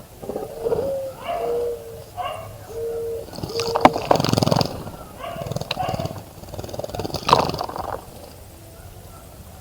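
A dove cooing: about four low, level hooting notes, the first sliding up, followed by a couple of short bursts of splashing and wing flutter in the bird bath.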